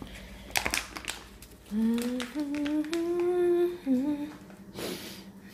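A person humming a few sustained notes that step up and then dip, lasting about two and a half seconds, after a few light clicks near the start.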